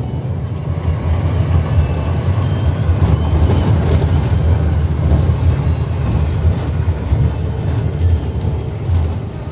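Intercity bus running on the road, heard from inside the cabin: a steady low engine drone and road rumble.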